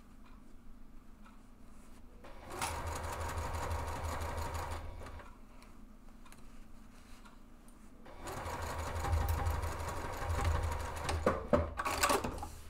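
Juki sewing machine stitching through fabric in two runs, the first starting about two seconds in and lasting about three seconds, the second starting about eight seconds in. A few sharp clicks come as the second run stops near the end.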